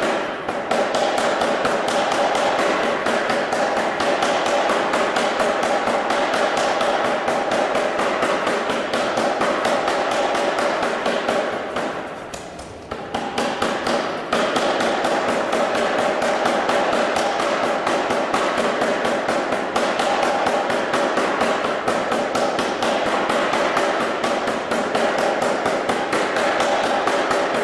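Self-contained air power hammer pounding red-hot stock in a rapid, steady run of blows. The blows ease off and stop for a second or two a little past the middle, then carry on at the same pace.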